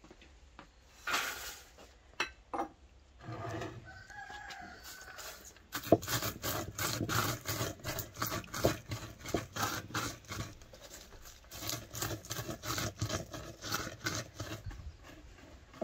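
A round stone pounding and grinding walnuts in a wooden bowl: a quick, steady run of knocks, about three a second, starting about six seconds in. Before that, a rooster crows.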